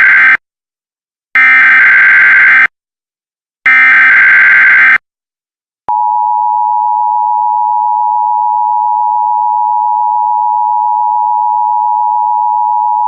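Emergency Alert System tones: three harsh, buzzing SAME digital header bursts, each a little over a second long, then, about six seconds in, the steady two-tone EAS attention signal. Together they herald an emergency alert message.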